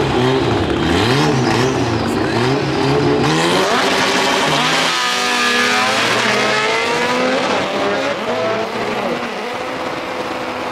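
Two Honda drag cars rev at the starting line, their engine pitch rising and falling over and over. About three seconds in they launch and accelerate hard down the strip, the pitch climbing through each gear change and fading as they get farther away.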